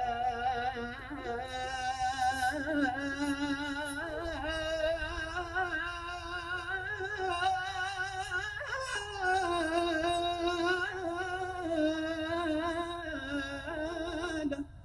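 A man singing a long, wordless melismatic passage of an Arabic qasida: drawn-out held notes that waver and slide between pitches. It cuts off suddenly near the end.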